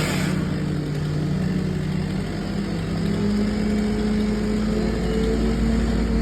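An engine running steadily, its pitch rising slightly after about three seconds.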